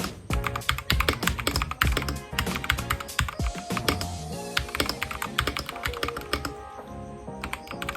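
Rapid typing on a Goojodoq mechanical keyboard fitted with brown switches: a dense run of key clicks and clacks. Background music plays underneath.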